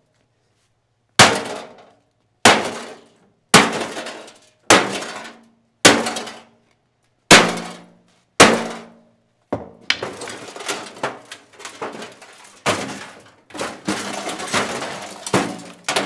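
Heavy blows on the sheet-metal chassis of a Homemaker EM930AH1 microwave: seven hard, metallic strikes about a second apart, each ringing briefly. These give way to a rapid clatter of smaller knocks and rattling as the casing breaks apart.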